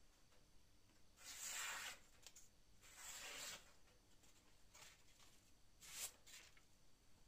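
Freshly forged steel cleaver's edge slicing through a sheet of paper in a sharpness test: two faint swishing cuts of under a second each, about a second and a half apart, then a shorter, sharper cut near the end.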